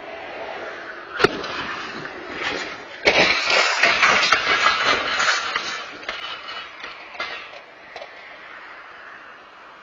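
Car crash picked up by an outdoor security camera: a sharp bang about a second in, then a louder burst of crashing and scraping for about two seconds that fades away.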